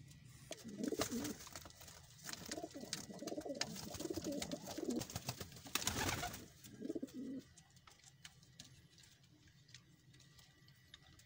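Fancy domestic pigeons cooing, a run of low burbling calls with scattered clicks that stops about seven seconds in.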